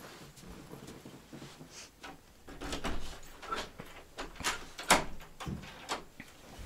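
Wooden room door being handled at its lever handle and latch: a string of sharp clicks and knocks over the second half, the loudest about two-thirds of the way through.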